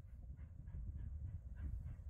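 Steam locomotive working, its exhaust beating in quick even chuffs about four or five a second over a low rumble, growing louder.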